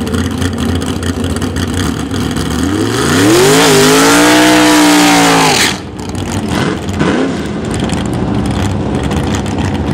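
A Super Pro dragster's engine revs up steeply and is held at high revs for about three seconds with a hissing roar, then cuts off sharply: a burnout. A short throttle blip follows about a second later, over the steady idle of engines at the line.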